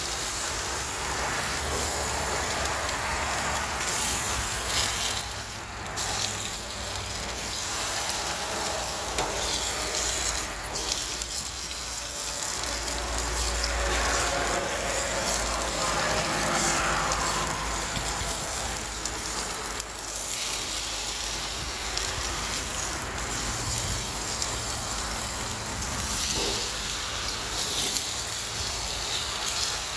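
Tomahawk steak sizzling on a hot grill, with fat flaring up in the flames: a steady hiss that carries on unbroken.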